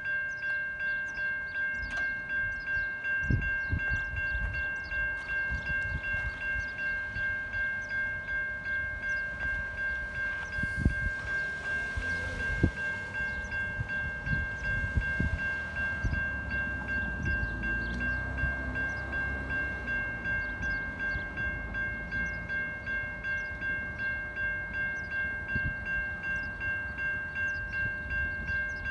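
Safetran Type 3 electronic level-crossing bells ringing with an even, repeating ding while the crossing is active and the boom gates come down. A few low thumps in the first half and a low rumble near the middle.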